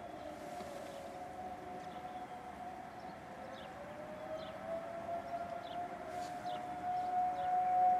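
Several Federal Signal 2001 tornado sirens heard from a distance, sounding a steady wail together. Two slightly different pitches drift against each other, and the sound swells louder toward the end.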